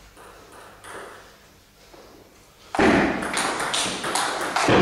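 Table tennis rally: the celluloid ball pings sharply off the bats and table in quick succession, echoing in a large hall, starting about three seconds in. Before that there are only a few faint taps.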